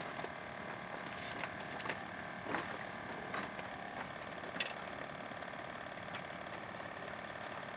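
An engine running steadily, with a few sharp clicks or knocks over it.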